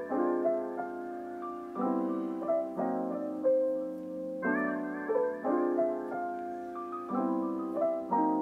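Gentle background piano music, a slow pattern of chords and single notes struck about once a second and left to ring.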